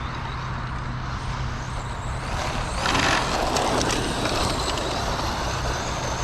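Team Associated Pro2 SC10 brushless short course RC truck driving on gravel: tyres crunching over the stones, with the noise getting louder from about three seconds in.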